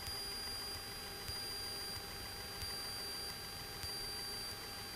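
Low hiss and a steady high electrical whine on a Cessna 210's intercom audio feed, with a faint click about every second and a quarter.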